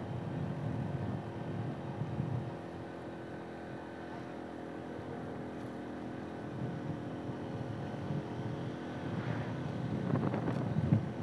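A vehicle engine running steadily as it drives along, with wind buffeting the microphone, gustier near the end.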